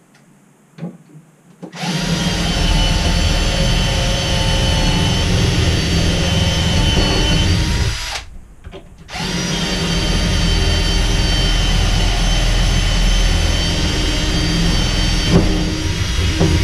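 Cordless drill boring through the wooden bed-base panel, likely making holes for the lift brackets' through bolts. It runs at a steady whine in two long spells of about six seconds each, with a short pause between them.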